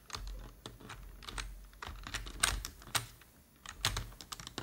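Computer keyboard keys clicking in irregular presses, a few louder clacks among them.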